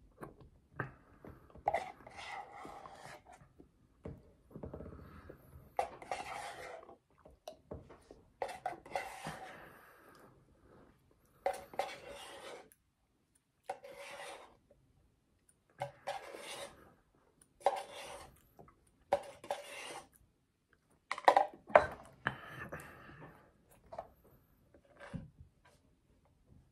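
Plastic spoon scraping the inside of a paper McFlurry cup, with eating and mouth sounds as the soft-serve is spooned and tipped from the cup, in a string of short separate scrapes every second or two.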